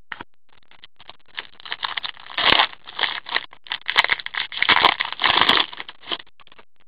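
Foil wrapper of a Fleer Showcase hockey card pack being torn open and crinkled by hand: rapid crackling rustles that start about a second in and die away near the end.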